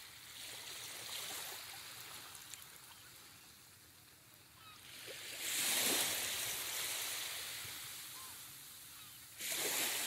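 Ocean surf on a sandy beach: a wave swells and washes in about halfway through, then fades slowly, and another breaks abruptly near the end.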